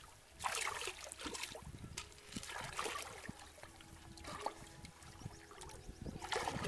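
Shallow muddy pond water splashing and sloshing as hands grope through it underwater, in bursts about half a second in, from about two to three seconds in, and again near the end.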